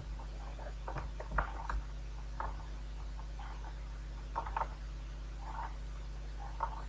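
Steady low electrical hum from the recording setup, with faint short ticks and rustles scattered through it, about eight of them at uneven intervals.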